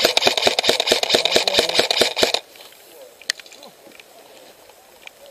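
Airsoft electric gun (AEG) firing a long full-auto burst, a rapid rattle of shots that stops abruptly about two and a half seconds in. A single sharp click follows about a second later.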